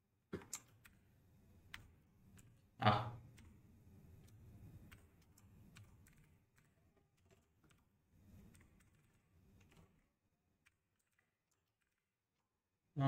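Faint computer keyboard typing and clicks, with a short vocal sound about three seconds in, the loudest moment.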